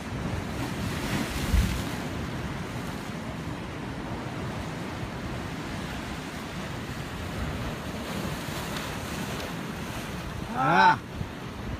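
Sea surf breaking and washing against the rocks of a pier, with wind on the microphone. A low thump comes about a second and a half in, and near the end a short voiced call, rising then falling in pitch, rises loud over the surf.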